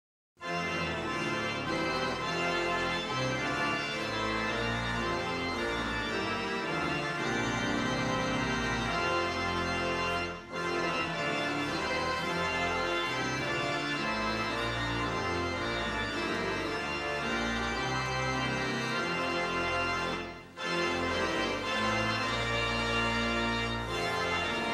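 Organ music playing in held chords at a steady level, with two brief dips about ten seconds apart.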